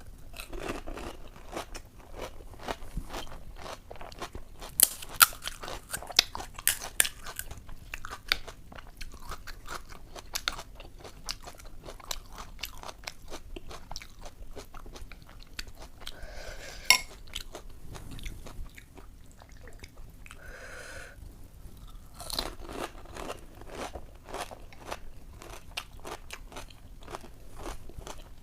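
Close chewing and crunching of crisp puchka (panipuri) shells filled with ghugni, with sharp cracks as the shells break, loudest about five to seven seconds in and again around seventeen seconds.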